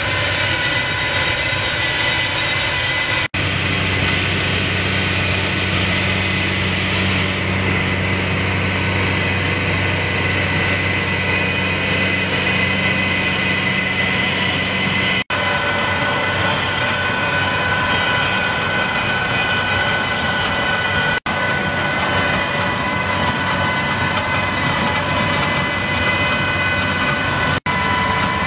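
Tractor engine running steadily under load as it pulls a Grimme Exacta potato planter, with brief sharp dropouts four times.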